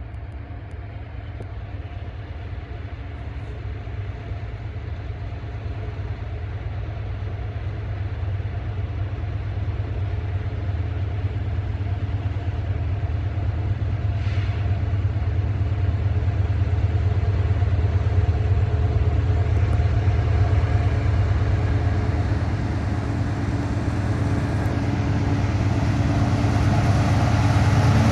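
Two diesel-electric freight locomotives working under power at the head of an intermodal train, a steady low engine rumble with humming tones that grows steadily louder as they approach. A brief faint hiss about halfway through.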